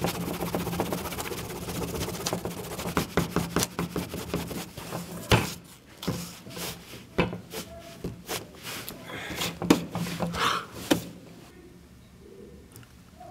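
Pencil scratching fast on a paper form on a tabletop: a dense run of quick strokes with a few sharper taps, which stops about eleven seconds in.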